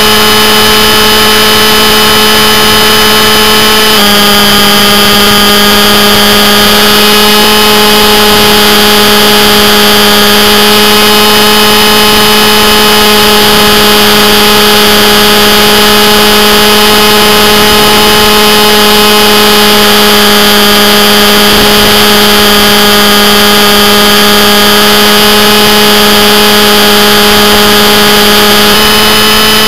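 Radio-controlled scale Hughes 500E model helicopter in flight, heard loud and close from on board: a steady drone of its drive and rotor with a whine of several even tones. The pitch drops slightly about four seconds in and comes back up near the end.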